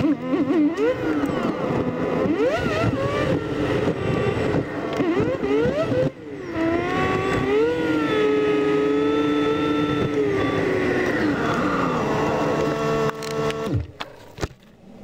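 Smart Roadster Coupé's three-cylinder engine heard from inside the cabin, sped up eightfold, so its note jumps up and down in quick pitch sweeps through acceleration and gear changes. The engine sound drops away sharply near the end.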